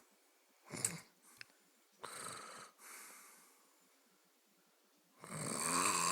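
Snoring during sleep: a short snort a little under a second in, a noisy breath about two seconds in, then a long, loud, rattling snore near the end.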